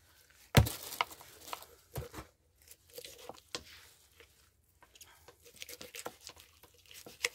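A whole chicken being handled and cut at a work counter: irregular knocks on the board with tearing and crinkling between them, the loudest knock about half a second in.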